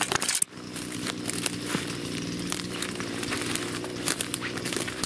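Footsteps crunching and crackling through dry leaf litter, twigs and brush on a forest floor, irregular and close. A faint steady low hum runs underneath.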